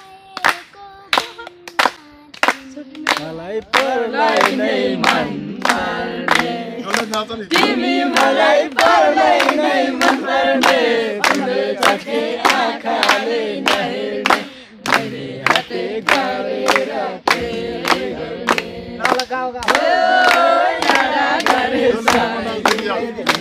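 A group of children and young people singing together to steady hand-clapping, about two claps a second; the voices grow fuller about four seconds in.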